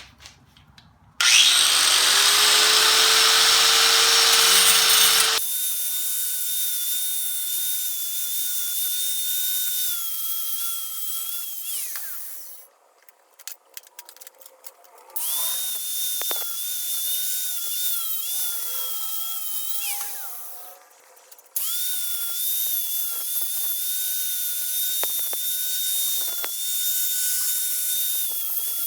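Electric drill boring through a steel angle bracket, its motor whine sagging and wavering under load. It winds down twice and starts again each time. At the start there are about four seconds of a louder, harsher power-tool noise.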